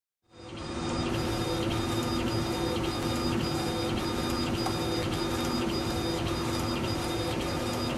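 Laser engraver running a job on a 40 oz tumbler turning in a rotary chuck: a steady mechanical whir with a hum and a light, regular ticking. It fades in over the first second.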